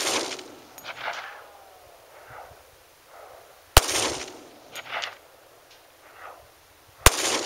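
Two pistol shots from a Glock 20 in 10mm Auto firing 180-grain rounds. The shots are about three seconds apart, the first a little under four seconds in and the second near the end. Each sharp crack trails off in echo, with fainter short sounds in the gaps and the tail of a shot fired just before.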